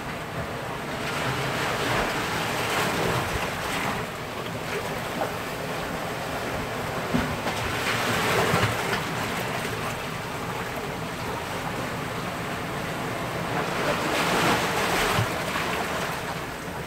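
Rushing noise that swells and eases in slow surges, loudest about two seconds in, around eight seconds and again near the end.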